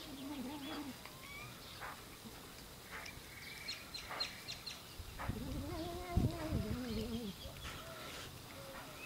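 Cat making a wavering, drawn-out vocal noise while eating wet canned food: one call trails off in the first second and a louder one lasts about two seconds past the middle.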